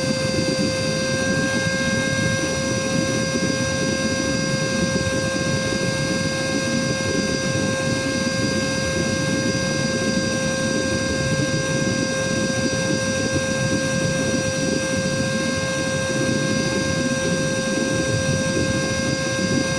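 Cordless vacuum cleaner running steadily on battery, a constant motor whine over the rush of air. About six minutes into a full charge, its battery is running down and the motor's power has dropped.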